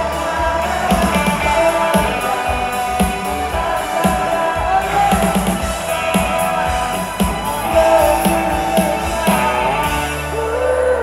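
Rock band playing live, with drums, electric guitars and keyboard and a woman singing.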